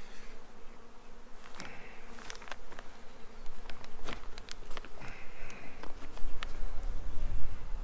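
Honeybees humming steadily around an open Carniolan hive, with several sharp clicks and knocks as wooden frames and a metal hive tool are worked in the box.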